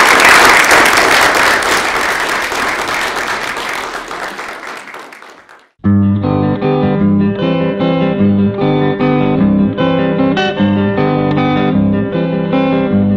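Applause from a group of people, fading out over about five seconds. After a brief silence, guitar music begins with a steady pattern of plucked notes.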